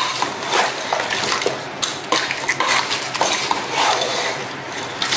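Wooden spatula stirring crab pieces in their shells in a pot: a busy, irregular clatter and scraping of shells against each other and the pot.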